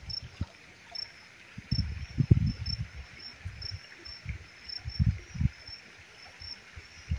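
An insect chirping, short high chirps repeating about twice a second, with low rumbles and thumps coming and going; the loudest is about two seconds in.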